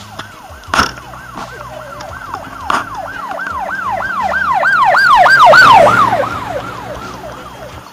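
Emergency-vehicle siren yelping in quick falling sweeps, about three a second, growing louder to a peak about five to six seconds in and then fading, like a siren passing by. Two sharp knocks sound in the first three seconds.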